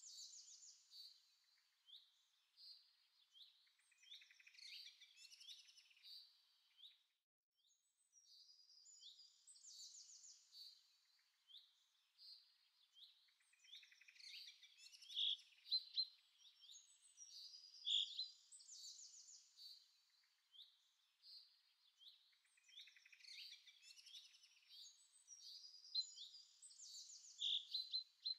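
Faint birdsong: many short chirps and trills coming in bursts, with a brief lull about seven seconds in.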